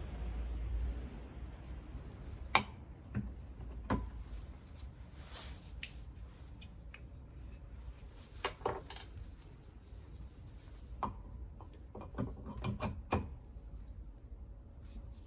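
Hand tools and small scooter engine parts clicking and knocking now and then as the engine is taken apart, with a quick run of taps late on.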